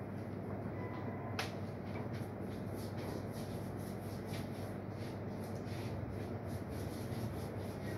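Light scratching and rubbing of pens writing on paper over a steady low room hum, with a sharp click about one and a half seconds in and faint irregular ticks after it.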